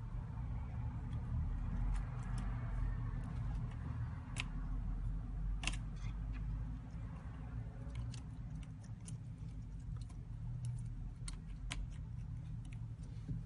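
Scattered light clicks and ticks of small repair tools on the iPhone X's parts, over a steady low hum.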